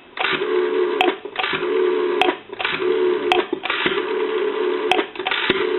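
Rotary dial of a GPO 606 telephone being dialled: the finger wheel is wound and runs back about five times in a row, each return a short whirring run under a steady tone, with sharp clicks between digits.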